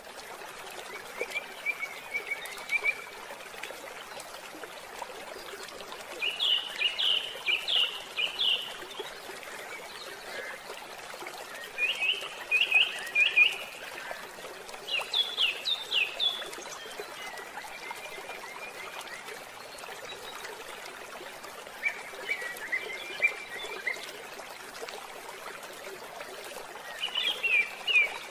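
Nature-sound ambience: steady running water trickling, with short phrases of rapid chirping trills every few seconds, about seven in all.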